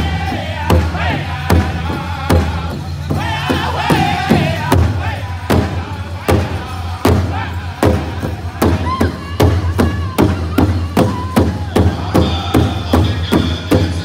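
A Northern-style powwow drum group singing loud, high-pitched unison song around a big hide drum, all striking it together with drumsticks in a steady beat. Near the end a single high note is held over the drumming.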